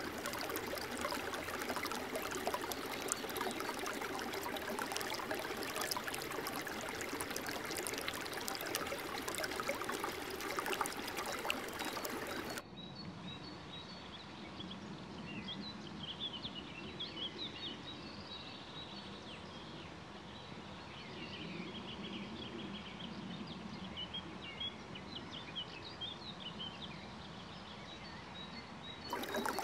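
A small stream rushing and splashing between boulders. About a third of the way in it cuts off abruptly to a quieter outdoor ambience with birds chirping, and the running water returns just before the end.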